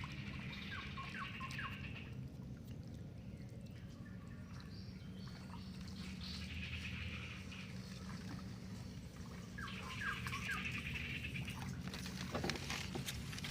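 Bird calls in two short bouts, a quick run of descending notes about half a second in and again about ten seconds in, over a steady low hum.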